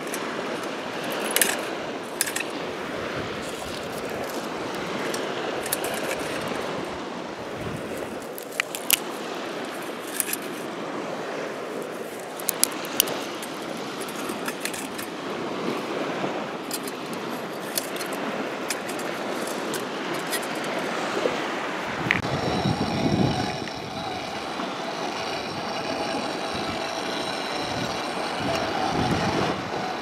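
Dry twigs snapping and clicking as kindling is broken and packed into a small wood-burning camp stove, over a steady rush of wind. A little after twenty seconds a gust buffets the microphone.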